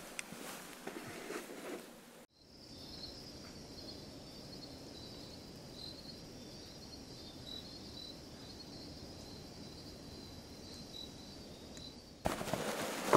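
Footsteps crunching on rocky ground for about two seconds. After a sudden cut comes a steady, high-pitched insect trill with a faint pulse, running for about ten seconds, before crunching footsteps return abruptly near the end.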